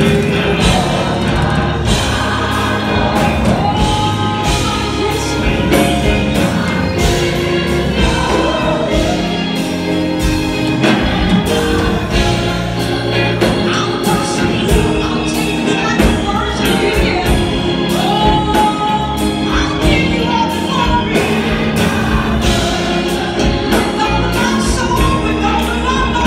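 Gospel choir singing with a lead soloist, backed by a live band with a steady drumbeat.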